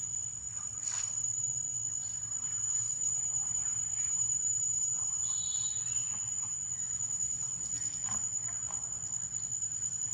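Steady, high-pitched drone of insects in the trees, unbroken throughout, with a brief high chirp about five and a half seconds in.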